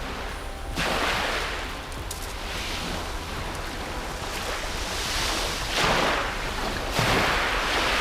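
Sea waves breaking on the beach, surging three times (about a second in, and again around six and seven seconds in), each easing off. A steady low rumble runs underneath.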